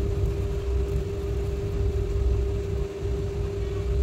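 Steady background hum holding one even tone, over a low, uneven rumble.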